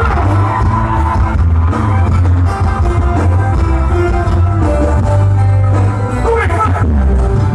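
Music with singing played loud through a paredão, a trailer-mounted wall of 18-inch speakers with horn tweeters, with a strong, heavy bass line.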